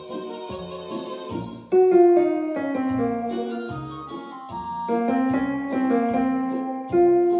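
Piano playing a slow song melody over chords. A louder melody line enters about two seconds in.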